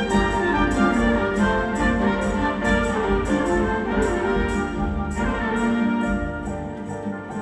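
Live ensemble of brass, strings and percussion playing an instrumental orchestral passage, with trumpets to the fore over a steady ticking percussion beat of about three to four strokes a second.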